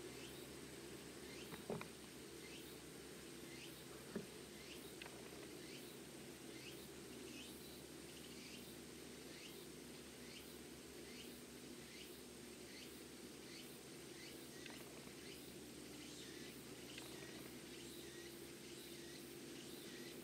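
Faint outdoor ambience: an unseen animal gives short, high, falling chirps about twice a second over a steady high whine. Two soft ticks come in the first few seconds.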